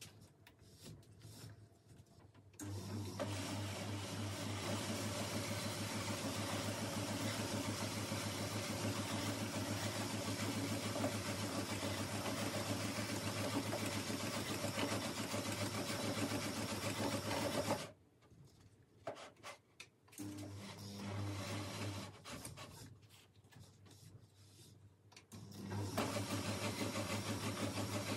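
Small electric motor turning a cricket bat in a binding jig as twine is wound onto the handle, running with a steady hum. It starts a few seconds in, stops for several seconds past the middle with a brief run in between, and starts again near the end.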